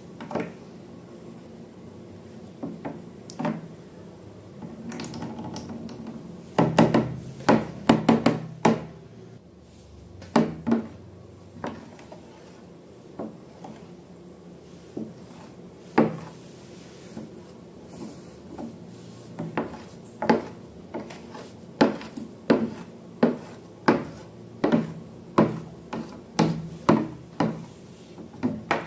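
A series of sharp knocks and taps with some rubbing between them, like hard objects being handled and struck. There is a quick flurry of taps about a third of the way in, and in the second half they settle into a fairly even run of about one or two a second.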